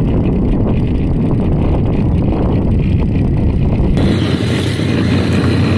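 Small fishing boat's motor running as a steady low rumble, with wind buffeting the microphone. About four seconds in the sound shifts abruptly and becomes hissier.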